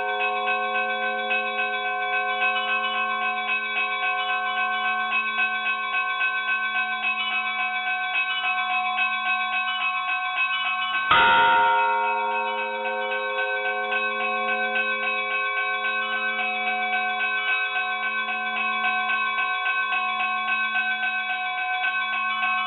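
Church bells ringing continuously: rapid repeated strikes over steady, lingering bell tones. About eleven seconds in comes a louder fresh strike, and the same ringing pattern starts over.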